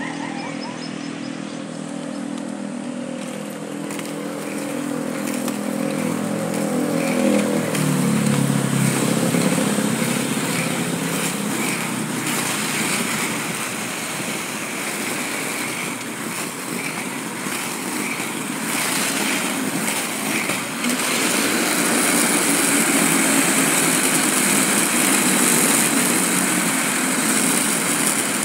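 Inline skate wheels rolling on smooth asphalt, a steady rolling hiss that grows louder and brighter about two-thirds of the way through. In the first several seconds an engine hum sounds under it and drops in pitch about eight seconds in, as if passing.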